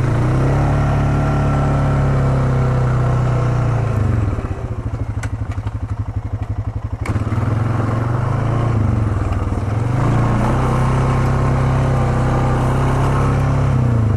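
ATV engine running as the quad is ridden along a trail: a steady engine note that eases off about four seconds in and picks up again a few seconds later, with a couple of sharp knocks in the lull.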